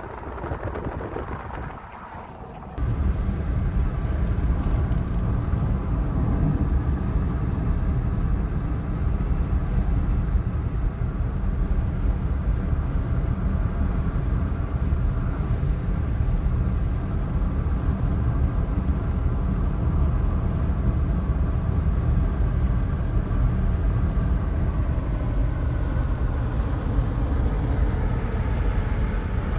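Steady low rumble of a car driving on a highway, heard from inside the cabin: road and engine noise. It starts abruptly about three seconds in, after a quieter stretch.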